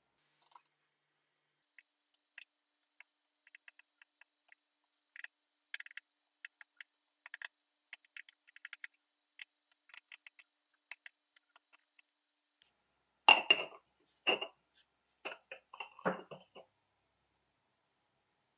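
Light, scattered clicks and clinks of small watch parts and tools being handled during cleaning, then a few louder clinks of hard objects knocking together about two-thirds of the way through.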